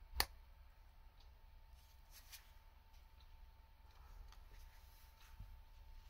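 A single sharp click just after the start as a Shimano Di2 E-tube wire plug is pushed home with the plug tool. After it come only a few faint handling ticks over near silence.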